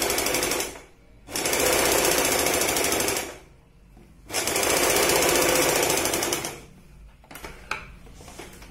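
Usha Stitch Queen electric sewing machine stitching a picot edge, running in short spells: it stops just under a second in, runs again for about two seconds, pauses, and runs once more for about two seconds. A few light clicks follow near the end.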